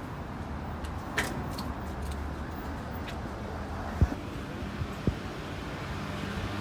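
Steady low background rumble with a few short sharp knocks or taps, the loudest about four seconds in.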